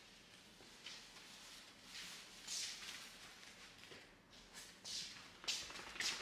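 Faint, scattered rustling and shuffling scuffs, with a few louder scuffs near the end, from slippered footsteps and handling on a stone floor.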